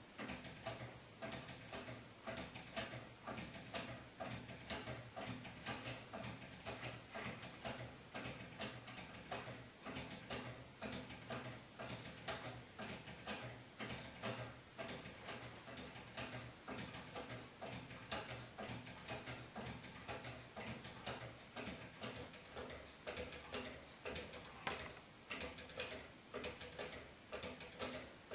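Wooden grasshopper escapement of a kinetic sculpture ticking, a steady, even run of dry clicks as the escape wheel is let through tooth by tooth.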